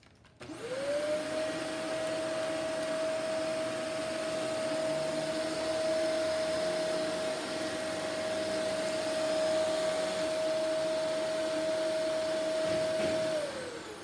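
Vacuum cleaner switched on: the motor spins up within about half a second to a steady high whine over a rush of airflow, then is switched off near the end and the whine winds down.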